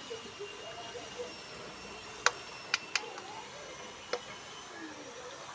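Four short, sharp clicks against a quiet background: one about two seconds in, two in quick succession just before the three-second mark, and a weaker one about four seconds in.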